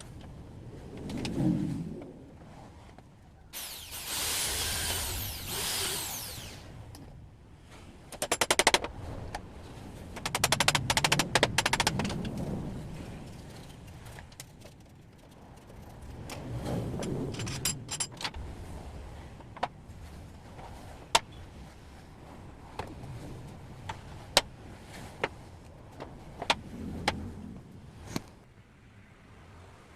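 Carpentry work sounds: a high-pitched power tool runs for a few seconds about four seconds in, then bursts of rapid rattling clicks, followed by scattered single sharp knocks.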